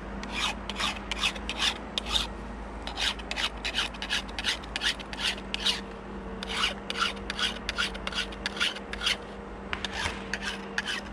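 Chainsaw chain being sharpened with a hand file: quick, rhythmic scraping strokes of the file across the cutters, about two or three a second, in short runs with brief pauses between them.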